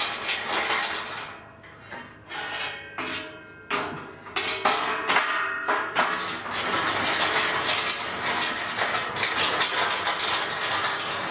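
Steel angle shelf frame being worked out of a steel oven cabinet: repeated metal clanks and scrapes, some of the knocks ringing briefly.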